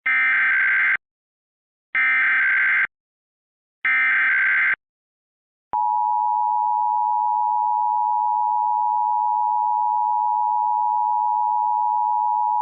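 Emergency Alert System signal: three one-second bursts of the SAME digital header, a warbling data screech, each followed by about a second of silence, then the steady two-tone EAS attention signal (853 and 960 Hz) starting about a second later and holding. It introduces a statewide Required Monthly Test from Pennsylvania's emergency management agency.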